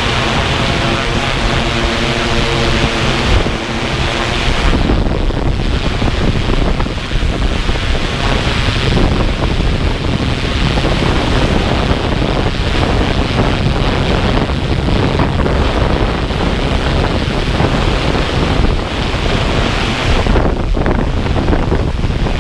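Multirotor drone's propellers buzzing as it climbs, with rotor wash and wind rushing over its onboard microphone. A steady pitched hum in the first four or five seconds gives way to a rough, rushing noise.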